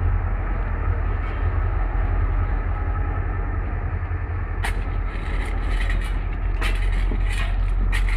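Steady low rumble of a G26 diesel locomotive idling, with sharp metallic clinks and taps of track bars and tools on the rail and its fastenings starting about halfway through.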